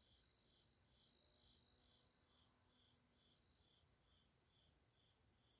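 Faint crickets chirping, about two chirps a second, over a steady high-pitched insect trill.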